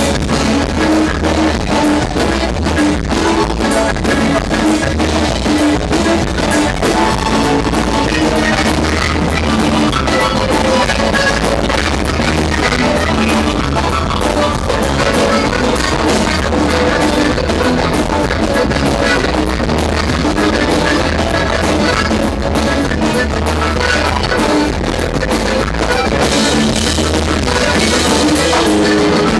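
Live norteño band playing loud and steady: drum kit, electric guitar, bass and accordion over a constant beat.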